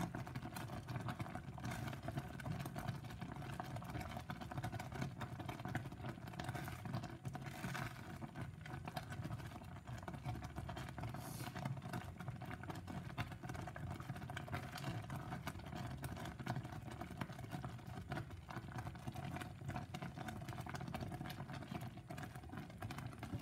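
Strawberry jam boiling in a stainless steel saucepan on a gas hob while a spatula stirs it: a steady low rumble under a constant fine crackle of bubbles.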